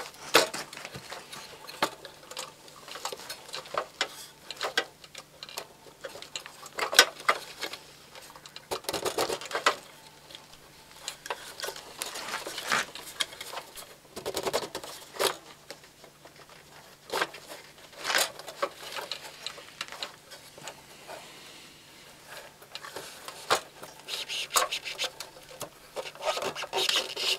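Sheet-metal parts of a paraffin heater's burner assembly scraping, clicking and knocking irregularly as the cover and wick holder are wiggled loose and lifted off the heater.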